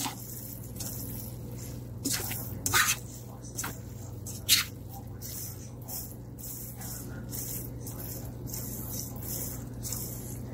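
A utensil tossing and stirring cooked bihon noodles with shrimp and vegetables in a pot, with short scrapes and clicks against the pot, several in the first five seconds and fainter ones after. A steady low hum runs underneath.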